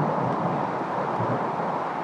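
Steady rush of a windy rainstorm, with low rumbles of thunder trailing off.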